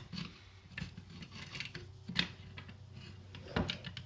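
Light metallic clicks and scraping as the rifle's guide rods and return springs are fitted into the back of the bolt carrier. A few sharp clicks stand out, the loudest a little past two seconds in.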